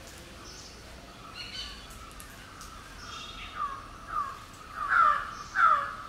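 A bird calling four times in quick succession in the second half, short calls that fall in pitch at the end and grow louder each time, the last two much the loudest.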